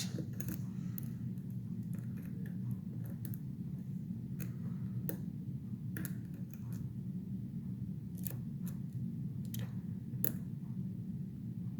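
Lock picks working the pins of a Bilock-clone lock: about a dozen sharp, irregular metallic clicks as pins are lifted and set. A steady low hum runs beneath.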